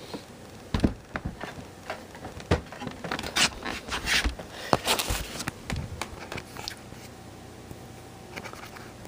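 Hands handling a PC tower's case and side panel: a run of irregular clicks, knocks and scrapes for the first five seconds or so, then quieter with a faint steady hum.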